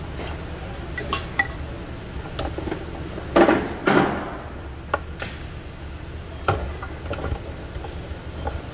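Scattered light clinks and knocks of hard objects being handled over a steady low hum, with a louder clatter about three and a half seconds in.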